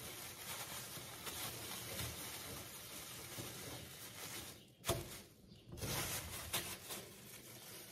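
Thin plastic bag of frozen strawberries rustling and crinkling as its neck is twisted and knotted, with a sharp light knock about five seconds in and a few soft ticks after.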